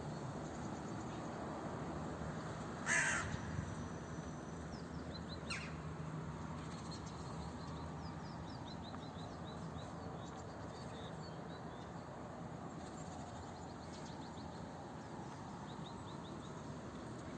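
Crows cawing: one loud caw about three seconds in and a shorter call a couple of seconds later, with faint high chirping through the rest.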